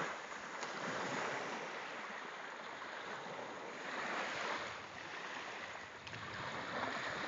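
Gentle surf washing over a shallow sandy and rocky shore, rising and falling in slow swells about every three seconds.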